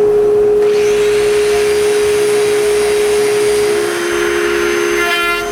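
Power sander running, a steady motor whine over the hiss of sanding wood. The whine drops to a lower pitch about two-thirds of the way through, as the motor comes under load.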